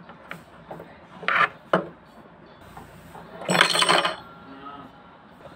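Metal hook-race parts of a Usha Stitch Magic sewing machine clicking and clinking as they are handled. There are a few sharp clicks in the first two seconds, then a louder metallic clatter about three and a half seconds in.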